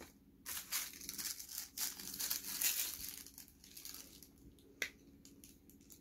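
Packaging crinkling and tearing as a boxed item is unwrapped, a burst of rustling for about three seconds, then one sharp click.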